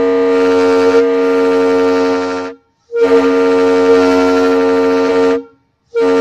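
Train horn sounding long, steady blasts of a two-note chord: one ending about two and a half seconds in, a second of similar length, and a third starting near the end, each cutting off abruptly.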